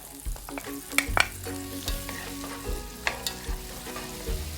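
Garlic sizzling in melted butter in a pan while it is stirred, with a few sharp taps of the utensil against the pan.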